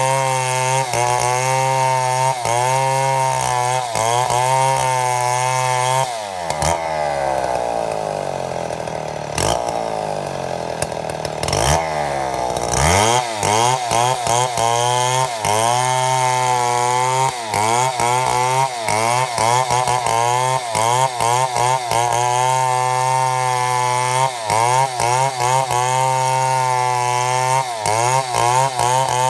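Chainsaw milling a mahogany log, running at high revs with its pitch wavering under the load of the cut. After about six seconds it winds down toward idle, then revs back up some six seconds later and carries on cutting.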